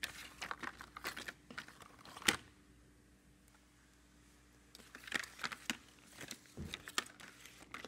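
Thick cardboard floor-puzzle pieces being shuffled and slid over one another on a hard floor, a run of light clicks and scrapes. A sharper knock comes about two seconds in, then a quiet pause, and the shuffling starts again.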